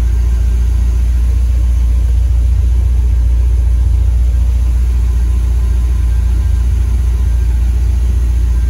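1976 Corvette Stingray small-block V8, running on its freshly rebuilt Quadrajet four-barrel carburetor, idling with a steady low rumble.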